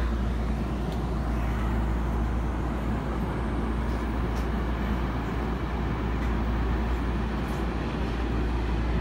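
Steady low hum and air rush inside a stationary E231-500 series Yamanote Line commuter train, its onboard equipment running while the train is held at the platform during an emergency stop. A couple of faint ticks sound in the middle.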